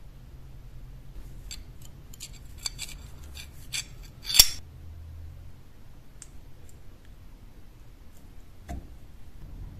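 Small metal clicks and scrapes as a steel guard is worked onto a rusty knife tang, ending in one loud clink about four and a half seconds in. A single dull knock follows near the end.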